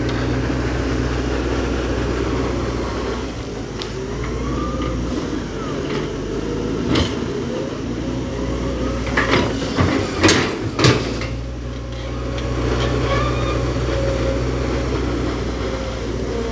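HB205 crawler excavator's diesel engine running steadily while it digs, its note easing about three seconds in and picking up again near twelve seconds. Several sharp clanks sound around nine to eleven seconds in.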